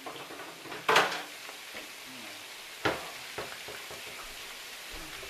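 Meatballs sizzling in a frying pan, a steady hiss, with a loud sharp clatter about a second in and a smaller one near three seconds.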